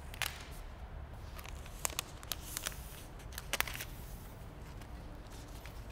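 Unboxing handling sounds: a handful of short crackles and taps from the protective paper sheet being pulled back and the laptop shifted in its box, loudest about three and a half seconds in.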